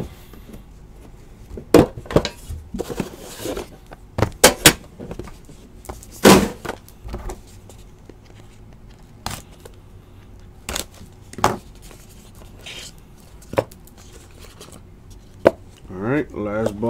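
A cardboard trading-card box and its cards being handled: about ten irregular sharp clicks and taps as the lid is opened and the card stack is lifted out and set down.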